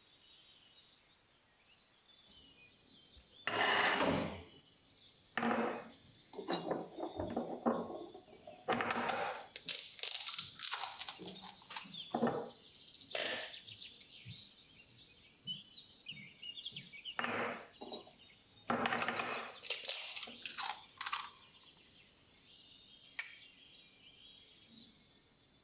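Eggs being cracked and emptied into a glass bowl and a food-processor bowl: a series of sharp knocks, cracks and clinks of eggshell against glass and plastic. Faint birds chirp in the background.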